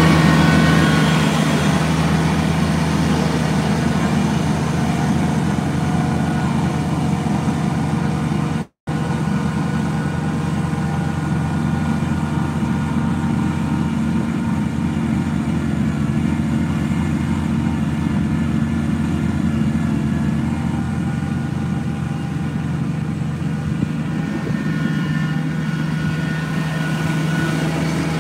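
Kubota BX23S compact tractor's three-cylinder diesel engine running steadily, a little louder in the first second as it pulls away, with the sound cutting out for a split second about nine seconds in.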